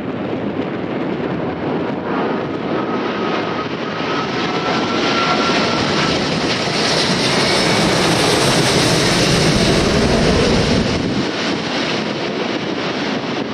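Jet airliner passing: engine noise building to its loudest about eight to ten seconds in, then easing off, with a faint whine in the first half.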